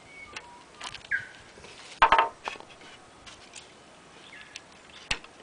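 Knocks and clatter of the wooden table-top trebuchet's arm and trigger cord being handled during setup. The loudest knock comes about two seconds in and a sharp click near the end. Birds chirp in the background, one short call about a second in.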